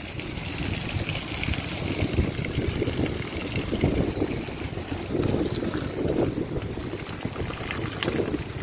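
Heavy rain falling steadily, a continuous hiss, with wind gusting against the microphone.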